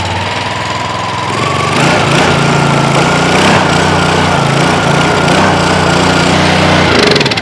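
Small four-stroke pressure-washer engine running on choke just after starting, its freshly cleaned carburetor letting it run: it speeds up about a second and a half in, runs steadily, then is shut off near the end and winds down.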